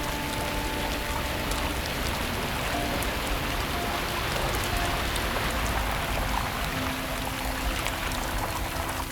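Steady rain falling on a Jeep Wrangler's windshield, an even hiss with scattered drop ticks and a low rumble underneath.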